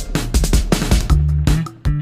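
Background music with a beat and a bass line.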